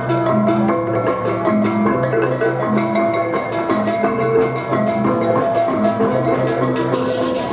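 Balinese baleganjur gamelan playing: a repeating melody on hand-held kettle gongs (reong), with drums and clashing ceng-ceng cymbals. A bright cymbal wash comes in near the end.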